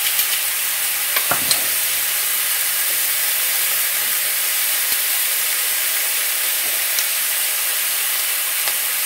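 Ground beef and tomato sauce sizzling steadily in a skillet on the stove, with a few light clicks over the top.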